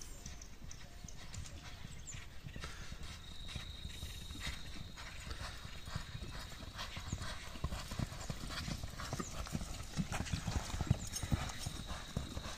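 Galloping hoofbeats of a horse and a bull running together on a loose dirt track, in a quick uneven drumming that grows louder in the second half as they draw near.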